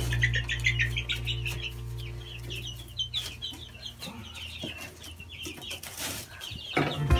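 Baby chicks peeping, a dense run of short high cheeps from many birds at once, with a few soft knocks and rustles.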